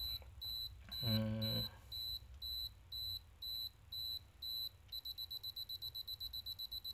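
Canon DSLR self-timer beeping its countdown: steady high beeps about twice a second, switching about five seconds in to rapid beeping, the sign that the shutter is about to fire.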